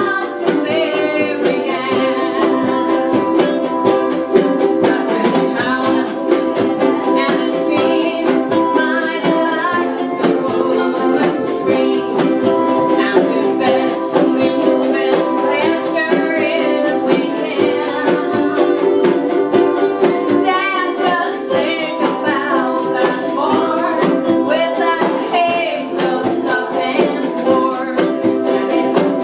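Several players strumming acoustic string instruments in a steady rhythm while singing a song together.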